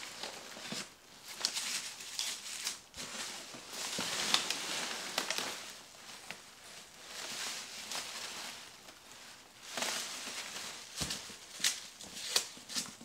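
Packing material crinkling and rustling as a packed item is unwrapped by hand, with a few sharp clicks and knocks.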